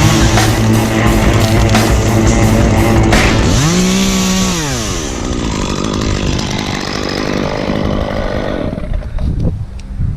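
Rock music plays for the first few seconds. Then a chainsaw revs up and back down once, about four seconds in, and runs on unevenly. Near the end, wind buffets the microphone.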